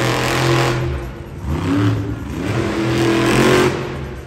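Monster truck's supercharged methanol V8 revving hard in surges: high at first, dipping briefly about a second in, then climbing again before easing near the end as the truck rears its front wheels up.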